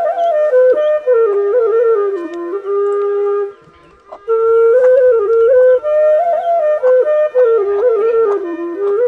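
Bansuri bamboo flute playing a solo melody that bends between held notes, with a brief pause for breath about four seconds in.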